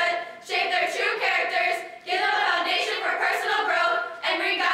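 Group of women's voices chanting in unison in a sung delivery, the phrases breaking off briefly twice.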